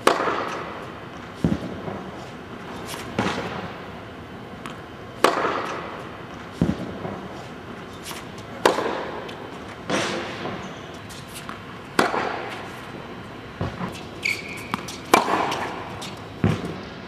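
Tennis balls struck with a Volkl tennis racquet on an indoor court: sharp pops about every one and a half to two seconds, each ringing on in the hall's echo, with a few duller thuds between them.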